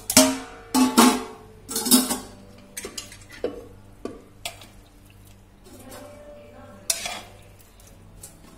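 Stainless-steel bowl and mesh strainer being set down in a steel kitchen sink: three loud ringing metal clanks in the first two seconds, then lighter knocks and clinks as cooked sprouted moong is tipped into the strainer.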